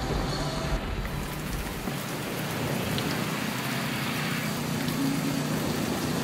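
Heavy rain on a moving car, with tyres hissing through flooded street water, making a steady wash of noise. A low rumble underneath fades out about two seconds in.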